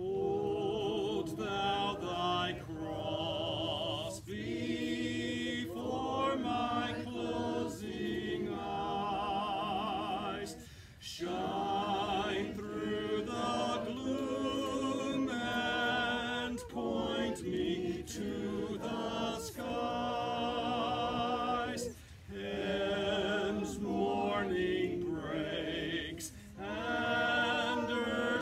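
A small group of mourners singing a hymn together, unaccompanied, in long sustained phrases with short pauses for breath between lines.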